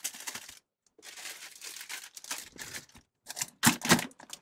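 Plastic food packaging crinkling and rustling as a pastry dough package is pushed down into a packed top-loading fridge, with a few sharp knocks near the end as containers inside are shifted.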